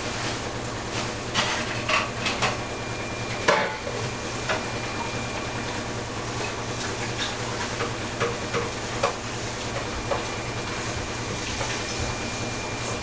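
A cooking utensil clinking and knocking against a pan in irregular strokes, over a steady hiss.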